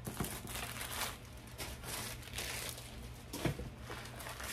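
Rustling and crinkling of plastic and paper wrapping as a handbag is unwrapped by hand, with a light bump about three and a half seconds in.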